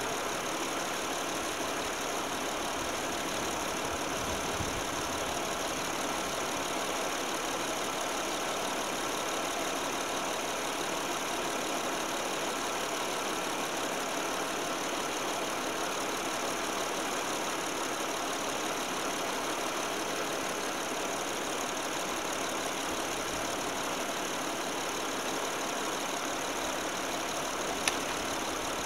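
Saturn Vue's 3.5-litre V6 idling steadily with the hood open. A single short click sounds near the end.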